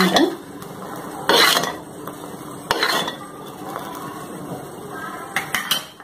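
A steel spoon stirring thick sugar-and-honey syrup as it boils in a clay pot, clinking and scraping against the pot a few times, with the syrup bubbling in between. The syrup is cooking down toward a thick candy syrup.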